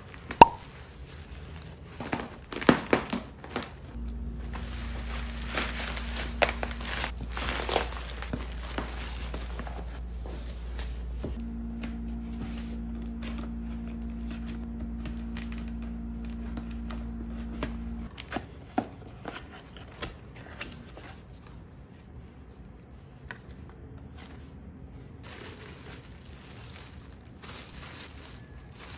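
Plastic shipping bag being torn open and crinkled, loudest in the first few seconds. Then scissors cut the packing tape on a cardboard box and plastic wrap rustles as it is pulled from the box. A steady low hum runs from about four seconds in until about eighteen seconds.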